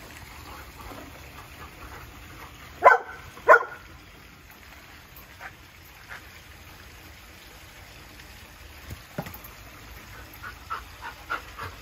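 Labrador retriever barking twice, about half a second apart, two short loud barks a few seconds in.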